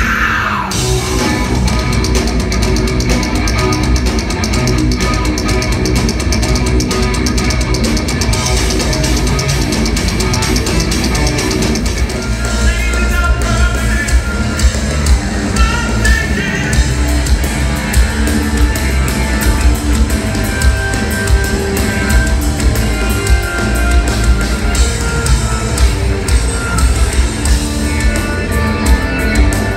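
Live heavy metal band playing loud through a PA: distorted electric guitar, bass, drum kit and keyboards, with a male lead vocal coming in about twelve seconds in.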